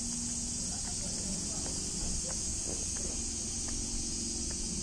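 Steady high-pitched insect drone over a low background rumble, with faint scattered short ticks and sounds.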